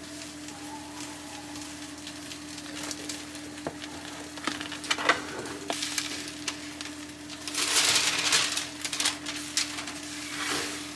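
Parchment paper crinkling and rustling as it is lifted and folded by hand, with scattered small clicks and a louder stretch of rustling a little past the middle. A steady low hum runs underneath.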